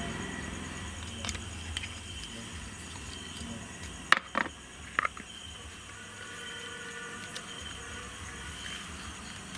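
Crickets chirping steadily in the background, with a few sharp knocks about four and five seconds in. A low hum fades out in the first second.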